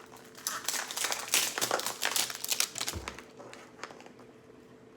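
Plastic wrapping crinkling and rustling as a toy surprise ball is handled and unwrapped, busy for the first three seconds and then dying down.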